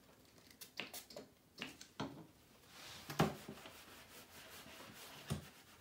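A few short sprays from a pump spray bottle of cleaner, then a sponge rubbing across a whiteboard to wipe it clean.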